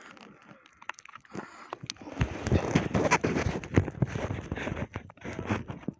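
Handling noises on a kayak: irregular knocks, clicks and rustling, starting about two seconds in, as a peacock bass is pulled off a cardboard measuring board and lifted over the side by its lip.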